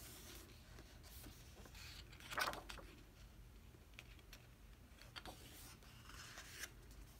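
Faint paper sounds from a glossy photo book being handled: soft rustles and swishes, loudest about two and a half seconds in, then a page being turned near the end.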